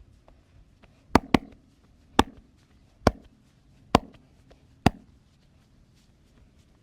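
Percussive massage strokes: six sharp hand slaps on the body, the first two in quick succession, then about one a second.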